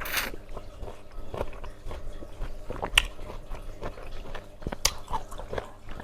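Close-up mouth sounds of someone biting and chewing lemon: wet smacks and small clicks, with a sharper click about three seconds in and again about five seconds in.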